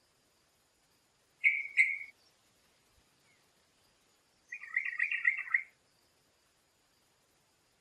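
Songbird calling: two short sharp notes about a second and a half in, then a quick, chattering warbled phrase lasting about a second, over a faint steady high-pitched whine.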